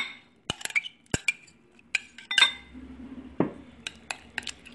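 Metal spoon clinking and scraping against glass bowls as mashed banana is scraped into beaten egg and stirred: scattered, irregular sharp clinks.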